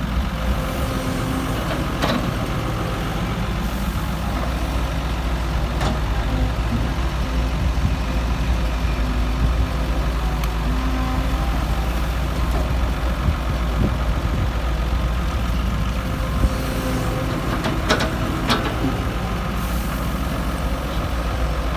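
Heavy machinery's diesel engine running steadily, with a few sharp knocks, two of them close together near the end.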